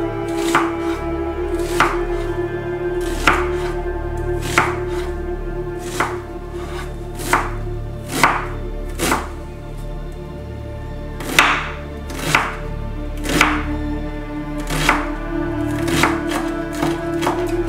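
Chef's knife chopping a red onion on a wooden cutting board: separate sharp cuts roughly one a second, about fifteen in all, over soft background music.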